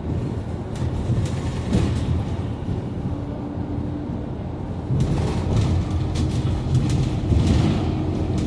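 Inside a Scania articulated city bus on the move: steady engine and road rumble with a faint steady whine. It grows louder about five seconds in.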